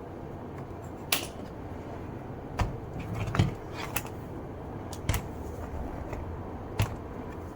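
Scattered sharp clicks and taps of hard plastic and small metal parts being handled during work on a laptop's underside, about half a dozen, with a small cluster about three seconds in, over a steady low hum.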